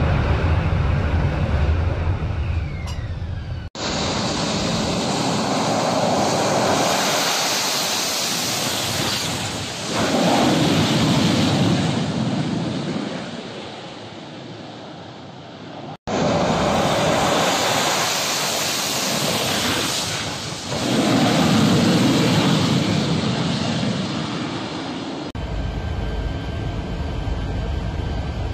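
AV-8B Harrier II jump-jets with Pegasus turbofan engines at high power. A low jet rumble is followed, after abrupt cuts, by two loud stretches of jet noise that each swell and then fade as the jet leaves the deck. Near the end there is a lower, steadier rumble.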